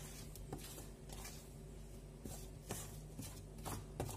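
Hands mixing flour and oil into dough in a stainless steel bowl: faint soft scuffs and rustles every second or so, over a steady low hum.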